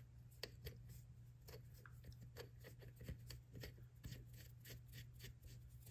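Faint metallic ticking and scraping of a lubricated thread chaser being turned by hand into a lug-bolt hole in a 1940 Indian Chief wheel hub, cleaning out the old threads. The ticks come about three or four a second over a low steady hum.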